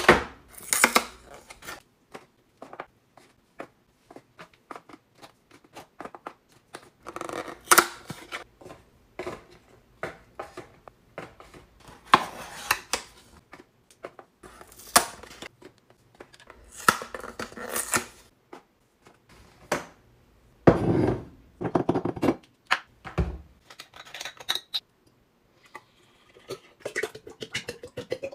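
Aluminium Nespresso Vertuo coffee capsules set one at a time into a plastic pod-storage drawer: a long series of light clicks and knocks, with stretches of rustling.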